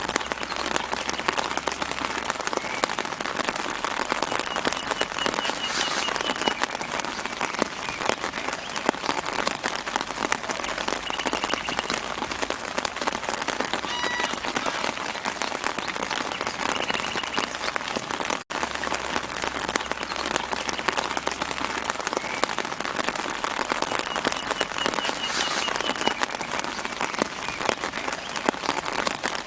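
Light, steady rain falling on leaves, a dense crackle of fine drops, with faint short bird trills in the background now and then. The sound cuts out for an instant a little past the middle.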